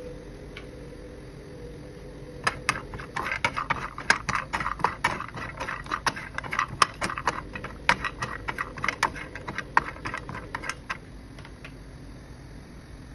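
Almonds, walnuts and cashews clattering in a dry nonstick frying pan as a wooden spatula stirs them while they roast: a rapid, uneven run of small clicks and knocks from about two and a half seconds in until about eleven seconds, over a steady low hum.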